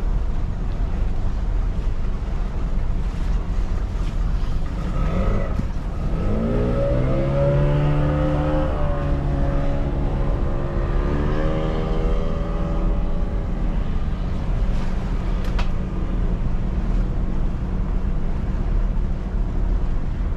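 Steady low rumble of the boat's engine with wind and water. About five seconds in, another boat's engine rises in pitch and holds for several seconds, then fades out near thirteen seconds.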